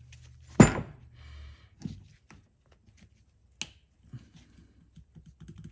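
Small tools and parts being handled on a workbench: one loud sharp knock just over half a second in, then scattered clicks and taps. A low hum stops about a second and a half in.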